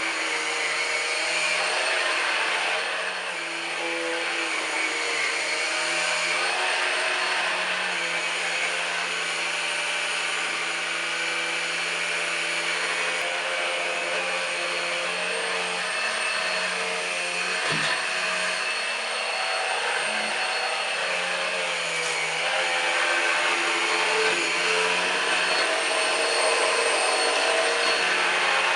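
Numatic Henry Quick cordless stick vacuum running steadily, a high motor whine over the rush of air.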